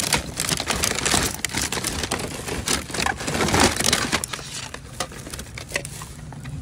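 Clear plastic bag crinkling and rustling as it is handled, with an irregular run of crackles.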